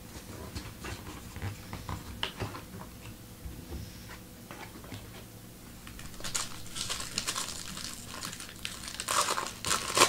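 Trading cards being handled with small scattered clicks, then a few seconds of crinkling from a foil card-pack wrapper being torn and handled.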